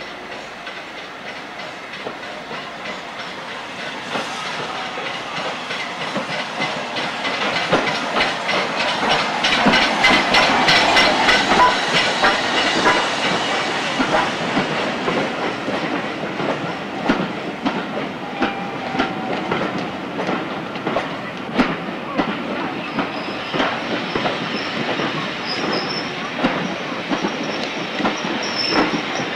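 A steam train hauled by an LMS Stanier Class 5 4-6-0 'Black Five' draws into the platform. The clatter of wheels over the rail joints rises, is loudest about ten seconds in, then slows into spaced clicks. Near the end a thin high squeal sounds as the train slows to a stop.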